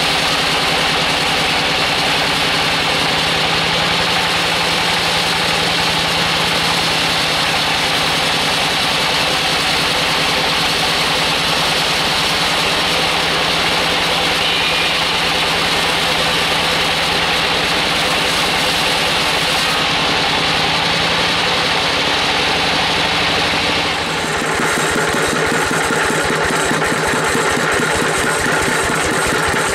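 Band sawmill blade cutting through a large log, a steady loud hiss and whine over the machine's running drive. About 24 s in the sound changes abruptly to the mill's engine running on its own with an even, fast low beat while the log carriage is moved.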